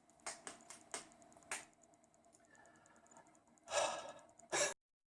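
A man sighing: one breathy exhale about four seconds in, followed by a short second breath, after a few faint clicks.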